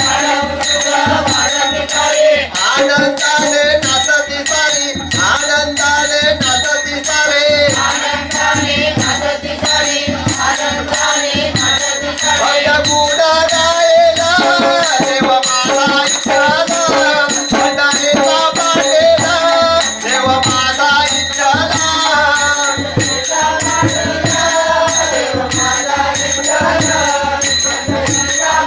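Voices singing a Marathi Vitthal bhajan, accompanied by jingling percussion that keeps an even beat.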